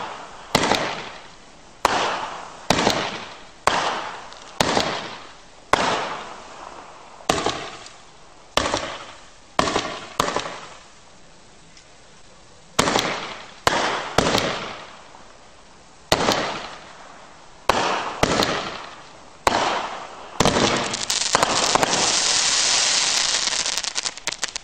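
Consumer fireworks finale cake firing: a run of loud, sharp bangs about one a second, each trailing away quickly, with a pause of a couple of seconds near the middle. Near the end it turns to a dense, continuous crackling that stops abruptly.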